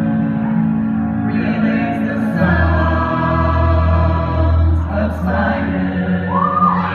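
A group of voices singing a song with long held notes.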